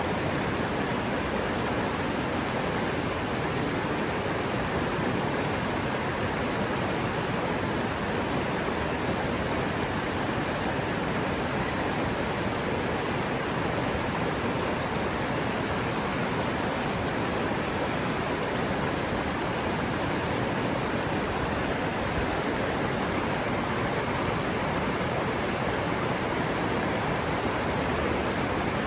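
River water running steadily over rocks, a constant rushing with no change.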